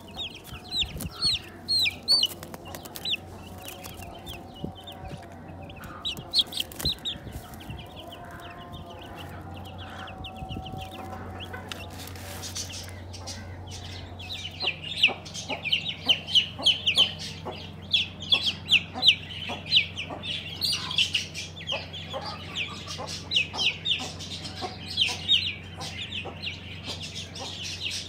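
Five-day-old broiler chicks peeping: a stream of short, high cheeps, scattered at first and then thick and constant from about halfway on. A few knocks come near the start, and a low steady hum runs underneath.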